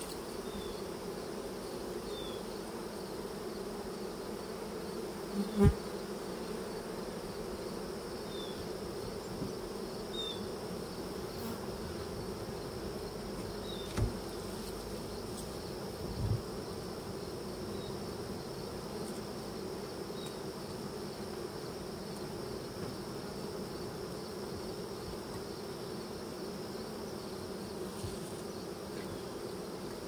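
A colony of honey bees buzzing around an open hive in a steady, dense hum. A few dull knocks sound over it, the loudest about five and a half seconds in and two more around fourteen and sixteen seconds.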